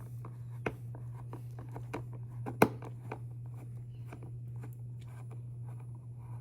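A small screwdriver backing a screw out of an RC jet's battery tray: faint scattered clicks and ticks, with one sharper click about two and a half seconds in, over a steady low hum.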